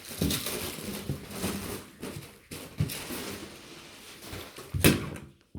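Plastic bubble wrap rustling and crinkling as it is cut with a utility knife and handled, with scattered small clicks and a louder rustle near the end.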